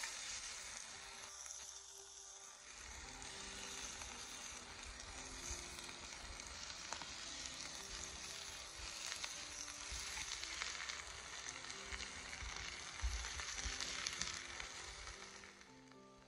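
Pieces of marinated chicken sizzling and frying in a hot frying pan over a charcoal barbecue as they are laid in by hand, with small crackles. The sizzle fades near the end.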